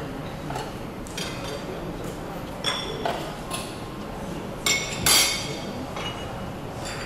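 Metal serving utensils clinking against steel chafing dishes and china plates at a buffet counter: a string of about half a dozen sharp ringing clinks, the loudest about five seconds in.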